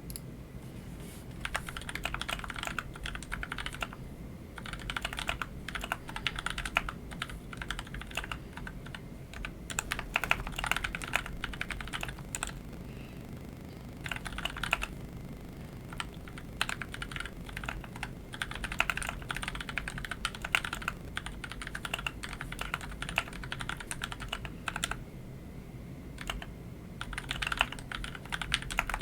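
Typing on a Keychron C2 full-size mechanical keyboard with lubed Otemu Sky Blue tactile switches and stock keycaps: a fast patter of key clicks in bursts of a few seconds, with short pauses between. The typist likens its tone to a rain stick.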